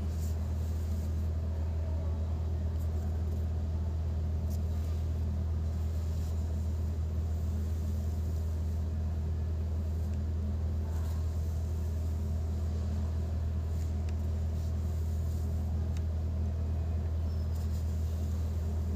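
A steady low background hum, unchanging throughout, with a few faint scattered ticks.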